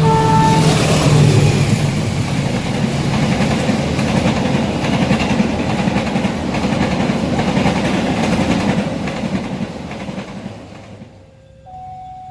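A train passing close by. The tail of its horn, a steady chord, cuts off about half a second in, then a loud rumble and rail clatter that fades away after about ten seconds. Near the end a different steady tone begins.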